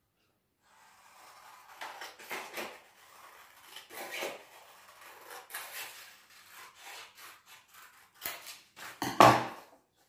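Scissors cutting a sheet of paper into strips: repeated snips and paper rustling. Near the end come a couple of louder knocks as the strips are laid down on the table.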